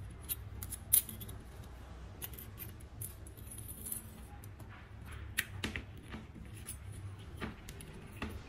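Scattered small metallic clicks and taps as a thin copper wire and a coax connector with a hex nut are handled against a shallow aluminium can disc. The sharpest click comes about a second in, and several more follow in the second half.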